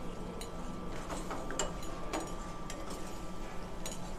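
Steel ladle stirring thick spiced gravy in a stainless steel pan, with scattered light scrapes and clicks of metal against the pan over a steady low hum.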